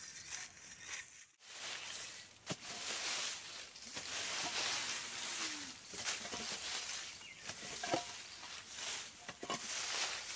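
Brooms sweeping dry leaves and dust across bare dirt ground: an uneven, scratchy rustle of repeated strokes.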